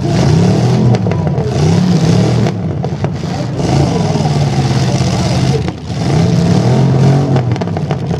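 Demolition derby truck engines revving hard, their pitch rising and falling over and over as the trucks push against each other.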